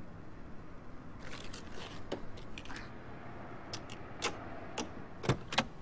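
A series of sharp, irregular clicks and knocks over a faint steady background, starting about a second in and loudest near the end.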